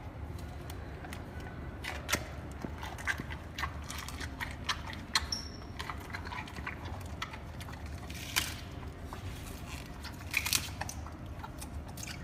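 Giant panda biting and chewing a fresh bamboo shoot: irregular crisp crunches and crackles, a few louder snaps, over a low steady hum.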